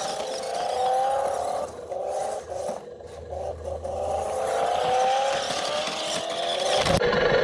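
Motor of a 1:14-scale RC monster truck whining as it is driven, its pitch rising again and again as it speeds up. Short stop-start bursts come in the middle, and a thump comes near the end.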